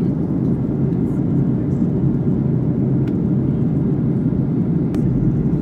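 Steady engine and air noise inside a jet airliner's cabin in flight, mostly a low rumble.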